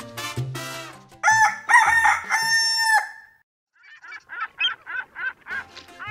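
A rooster crowing once, a long pitched cock-a-doodle-doo, then after a short pause a quick run of chicken clucks. Latin dance music fades out in the first second.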